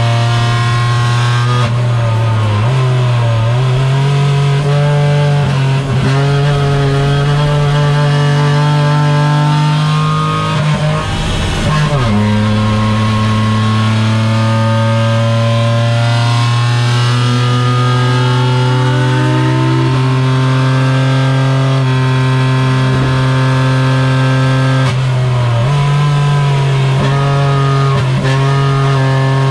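Renault Twingo Cup's 1.0-litre three-cylinder, non-turbo engine running hard at track speed, heard from inside the cabin, with background music over it. About halfway through the note breaks where a shift into third gear is missed.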